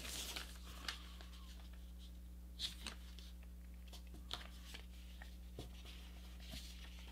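Faint rustling and soft crackles of a sheet of paper being folded and creased by hand, the clearest crackles about a third of the way in and just past halfway, over a low steady hum.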